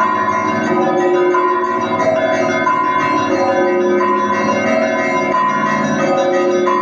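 Russian Orthodox monastery bells ringing together, several bells of different pitch overlapping in a repeating pattern that comes round about every second and a third.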